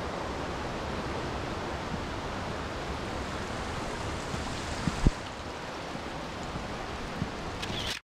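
Mountain stream and waterfalls making a steady rush of water. There are a few soft knocks and one louder thump about five seconds in, and the sound cuts off suddenly at the very end.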